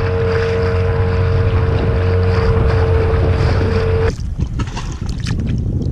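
Small Yamaha outboard motor running steadily at speed on an inflatable dinghy, a held whine over a low hum, with wind and water rushing past. It cuts off abruptly about four seconds in, replaced by light splashing and small knocks.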